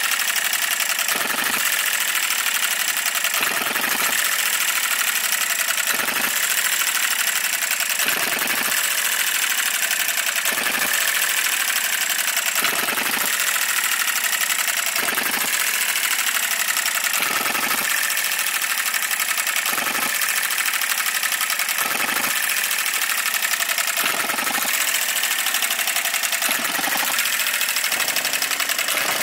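Enjomor 6cc model hit-and-miss petrol engine running: a fast, steady clatter from its running gear, broken every second or two, at uneven gaps, by a heavier firing stroke as the governor lets it fire, then lets it coast.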